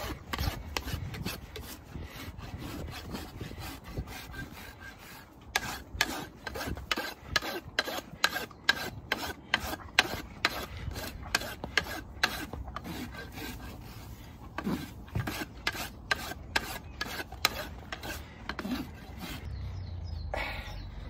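Farrier's hoof rasp scraping across a horse's hoof wall as the hoof is dressed, softly at first, then in quick repeated strokes, about two or three a second, through the middle.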